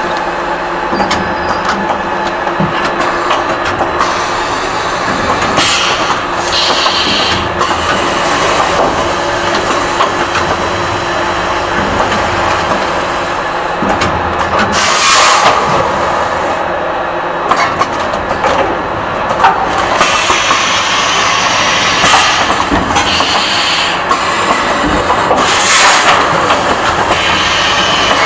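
Automatic bag-packing machine running: steady mechanical clatter, with short hissing bursts of released air from its pneumatic cylinders every few seconds.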